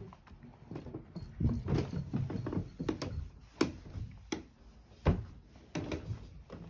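Footsteps going down wooden stairs: a run of uneven knocks and thumps, the loudest about five seconds in.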